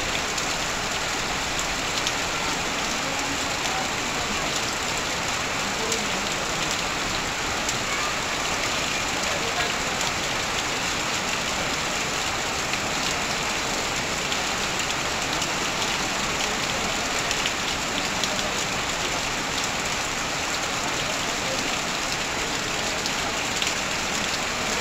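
Heavy rain falling steadily on corrugated tin roofing and sheet-metal walls, with runoff pouring off the roof edge: a constant even hiss full of fine, sharp drop impacts.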